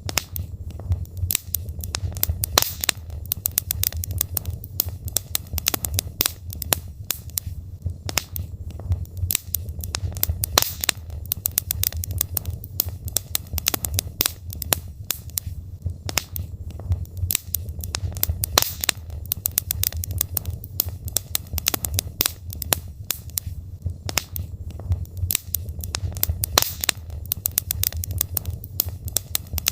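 Wood logs burning in a fireplace, crackling and popping with many irregular sharp snaps over a steady low rumble of the flames.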